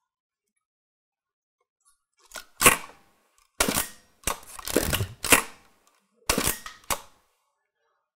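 A medium format film SLR firing: mirror slap and shutter make a sharp clack about two and a half seconds in, followed by several more clacks and longer mechanical rasps over the next few seconds. This is a fairly quiet one for a medium format film camera, with a big mirror that has to flip out of the way.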